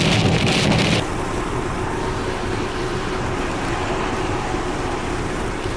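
Car driving through heavy rain, with rain on the car and tyres on the wet road. About a second in, the sound changes abruptly to a steadier, slightly quieter road noise.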